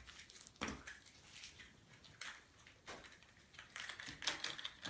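Faint clicks and rustles of a yellow plastic Kinder Surprise toy capsule being handled and pried open by hand, in short scattered taps that come thicker near the end.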